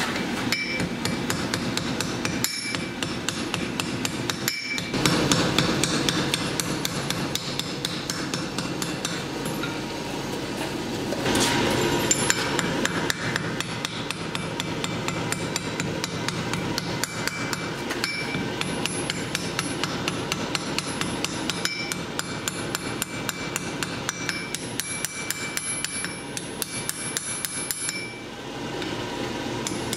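Blacksmith's hammer striking hot steel on an anvil in a steady run of rapid blows, with a faint metallic ring, pausing briefly near the end.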